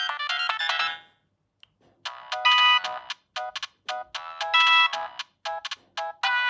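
Siemens C65 mobile phone stock ringtones. One electronic melody of quick notes ends about a second in, and after a pause of about a second another begins: short notes with a few longer chords.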